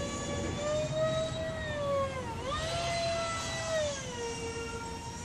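Twin 70 mm electric ducted fans of a Freewing Su-35 RC jet whining high overhead as it flies a loop: the whine dips about two seconds in, rises again, then settles to a lower pitch near the end. A low rumble runs underneath.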